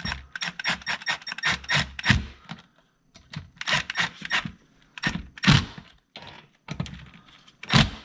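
Cordless drill driving stainless steel machine screws into a safe lock's mounting plate in short bursts, with fast runs of clicking: one of about two seconds at the start, then several shorter ones.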